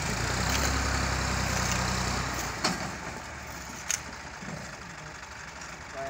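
Tractor engine running steadily, louder for the first two and a half seconds and then quieter, with two sharp knocks about a second and a half apart midway through.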